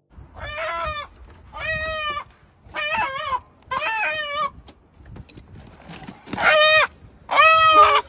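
An animal calling six times in short, pitched calls, each rising and falling in pitch, with short pauses between them and the last two the loudest.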